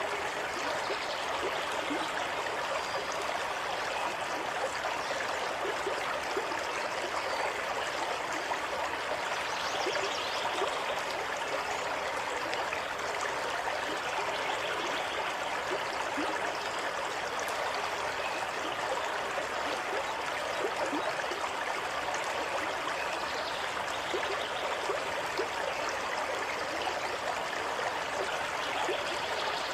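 Running water flowing steadily, a continuous rush with many small splashes through it.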